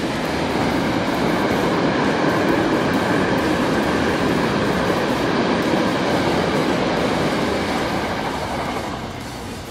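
E2-series Shinkansen train running past on the line: a steady rush of wheel and running noise that swells as it passes and fades away over the last couple of seconds.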